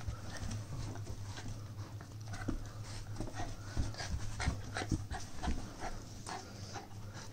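Puppy playing tug of war with a braided rope tug toy: its breathing and small dog noises amid many short scuffs and knocks of rope, paws and hands on carpet, over a steady low hum.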